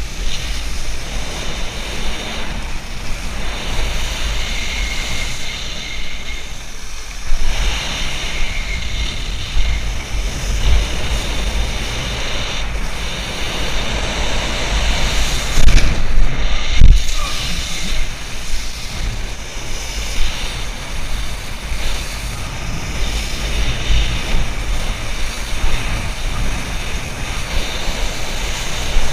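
Wind buffeting an action camera's microphone while a wakeboard skims and sprays across the water behind a cable tow, with louder knocks and gusts about 7 seconds in and again around 16 to 17 seconds.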